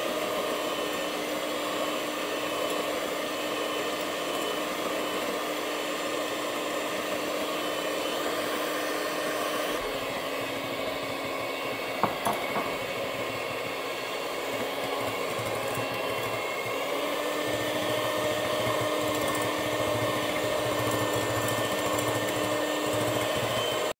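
Moulinex electric hand mixer running steadily, its beaters whipping egg whites and sugar into stiff meringue. A couple of sharp knocks sound about halfway through, and the motor is switched off right at the end.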